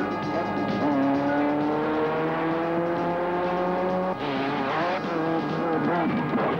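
Dune buggy engine running hard, its pitch rising steadily as it accelerates, then swinging up and down from about four seconds in as the revs rise and fall over rough ground.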